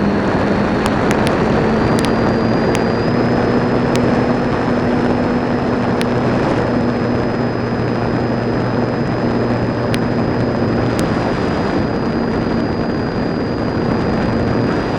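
Model airplane in flight, heard from its onboard camera: steady rushing wind over the airframe with the hum of the electric motor and propeller, and a few short clicks.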